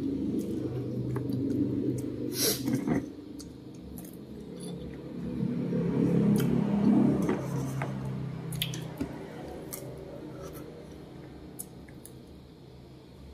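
Close-up chewing and squishy mouth sounds of someone eating small black berries, with a few sharp clicks and taps, the loudest about two and a half seconds in.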